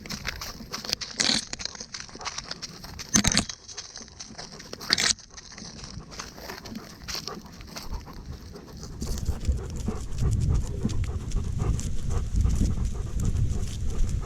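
A dog panting close to the microphone, with a few sharp knocks in the first half. About two-thirds of the way in, louder low rustling and jostling sets in.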